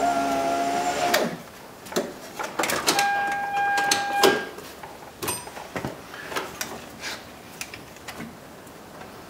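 2001 Toyota Sequoia's driver-door power window motor running with a steady whine during a test after reinstallation, stopping about a second in. It runs again briefly about three seconds in, and the rest is scattered clicks and rattles of the door switch and wiring being handled.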